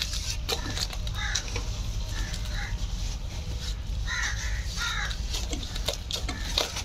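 Crows cawing again and again in short calls, over the wet slaps and scrapes of a hoe chopping and turning mud mortar.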